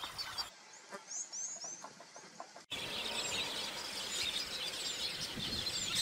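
Wild birds calling: a few quick, high, sweeping chirps, then a louder, denser chorus of bird calls that starts abruptly a little under halfway in.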